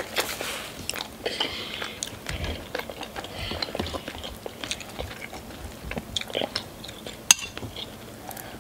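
Metal forks scraping and clicking against cup-noodle bowls as noodles are stirred and twirled, with eating sounds. A sharp clack about seven seconds in is the loudest sound.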